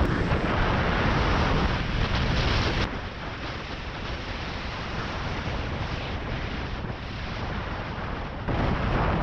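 Airflow rushing over the microphone of a camera mounted on a hang glider in flight: a steady, rumbling wind noise. It drops quieter about three seconds in and grows louder again near the end.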